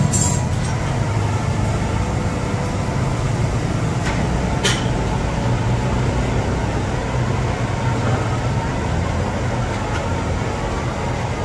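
Steady low rumble of background noise, with a brief click near the start and a sharper click about five seconds in.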